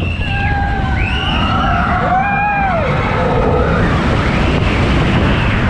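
Roller coaster car running along its track: a heavy rumble and rushing wind on the microphone, with riders' high drawn-out screams and whoops rising and falling over it.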